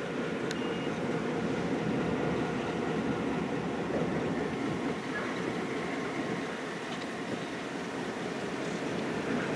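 Diesel F-unit locomotive running steadily as it moves slowly with its passenger coach, a continuous low engine rumble.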